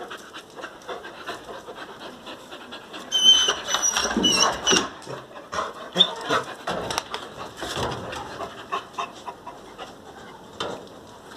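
Dogs panting, with scuffling and clicking sounds as they move about. A brief high-pitched squeak comes about three to five seconds in.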